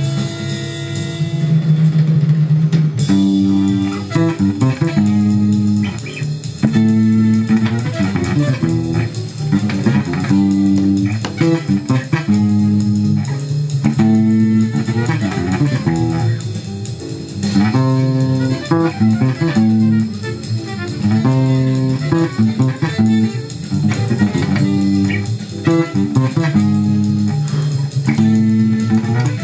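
Four-string electric bass played fingerstyle: a quick jazz line of plucked notes, opening on one held low note before the line moves on.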